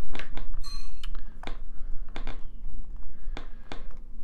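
Hard 3D-printed prop parts being pressed together by hand, a tight push fit. There is a short ringing chink a little under a second in, then several scattered clicks and knocks.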